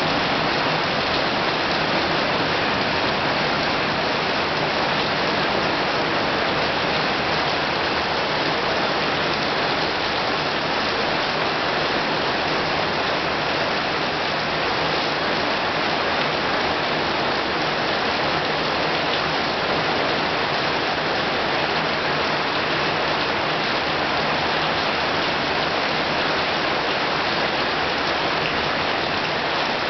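Heavy rain falling steadily and hard, pouring onto surfaces in an even, unbroken rush.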